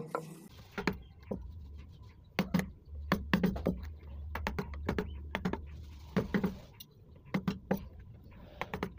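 Carving chisel being struck with a wooden mallet and cutting into teak: irregular sharp taps, in small clusters with short pauses. A steady low hum runs underneath from about half a second in.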